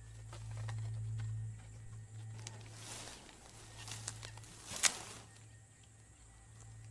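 Soft rustling and crackling of dry grass as an impala grazes, with a few sharp snaps of stems from about three to five seconds in. A low steady hum runs underneath.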